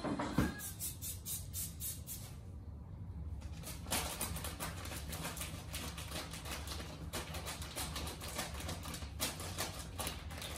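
Rustling and crinkling of artificial Christmas tree branches and decorations being handled, many short crackles close together, over a low steady hum.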